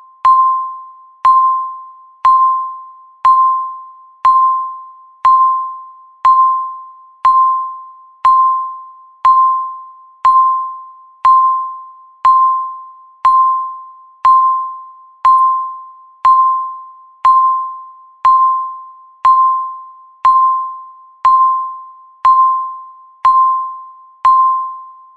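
Countdown timer beep: a single electronic ding about once a second, each starting sharply and fading quickly, marking each second counted down.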